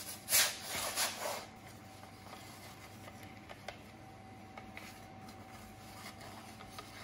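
Hands dusting semolina over a perforated aluminium pizza peel and working the dough: a few short rustling scrapes in the first second and a half. After that there is only a faint steady hum with a few light taps.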